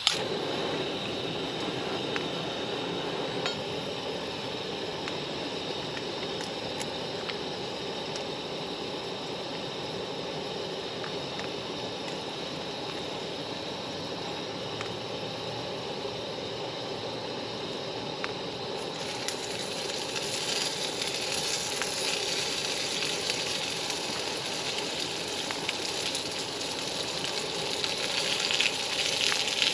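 Spam frying in a small skillet on a camp stove, with a steady sizzle. The sizzle grows brighter about two-thirds of the way through and louder near the end.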